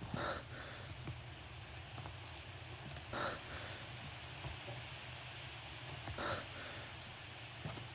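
Short high chirps repeating evenly, about three every two seconds, like an insect chirping, over a low steady hum. A heavier scuffing sound comes about every three seconds.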